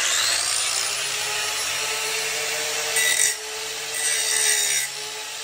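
Corded Ryobi angle grinder switched on, its whine rising as the motor spins up, then grinding off the rusted-on bolt heads of an exhaust manifold heat shield. The grinding stays steady and swells louder a few times as the wheel bites into the metal.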